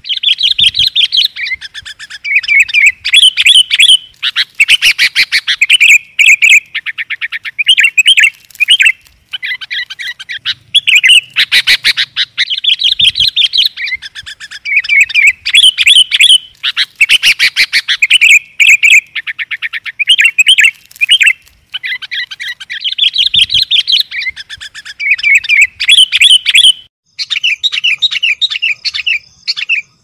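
Sooty-headed bulbuls calling almost without pause, loud: bubbly whistled phrases broken by quick chattering runs. It is a lure recording (suara pikat) played to draw wild bulbuls in.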